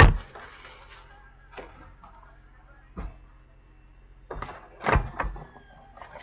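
A trading card box being opened and handled: a sharp knock, then about a second of rustling tear, then scattered thumps and taps of cardboard and card packs being handled.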